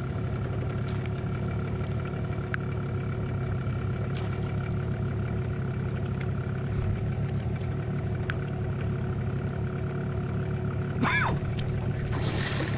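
Yamaha 15 hp outboard motor running steadily on a small aluminium jon boat. Near the end there is a short burst of splashing and a brief cry.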